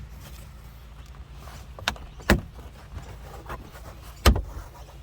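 Sharp clicks and knocks of plastic interior trim and its clips being worked loose by hand, a couple of loud ones about two seconds in and one about four seconds in, over a low steady hum.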